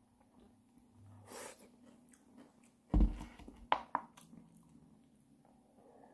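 Handling noise from a clear plastic cup of fruit chunks stirred with wooden chopsticks and lifted: a heavy thump about three seconds in, then a few sharp clicks.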